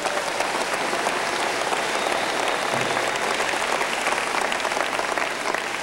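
Audience applauding, many hands clapping at once in a steady burst.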